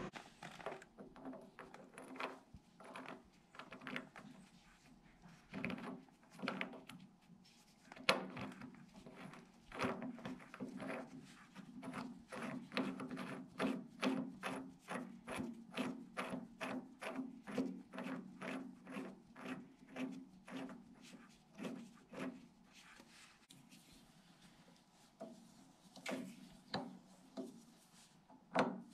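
A grade 8 bolt being threaded into a freshly tapped 5/8-inch hole in the end of a Wisconsin VH4D engine's crankshaft, turned by hand and then with an adjustable wrench near the end. It makes a long run of short metal scrapes and clicks, about two or three a second through the middle.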